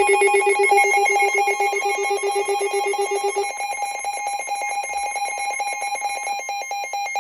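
A loud, rapidly pulsing electronic alarm-like ringing made of several steady pitches at once. Its lowest pitch drops out about halfway through, and the higher pitches keep pulsing.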